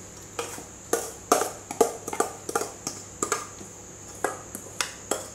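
A spoon knocking against kitchenware in an irregular run of sharp clinks, about two or three a second, starting about half a second in, as sticky sesame and chia seed cracker mixture is dolloped out.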